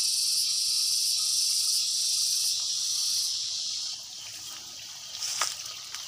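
Insects chirring in a steady, high-pitched chorus that drops away about four seconds in.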